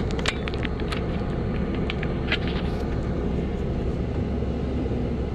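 Car driving along a narrow road, heard from inside the cabin: a steady low rumble of engine and tyres, with a few sharp light clicks in the first three seconds.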